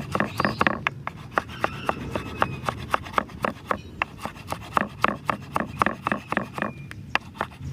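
Rapid, even strokes of a hand tool, about four a second, each a short sharp scrape or knock. They pause briefly near the middle and again near the end.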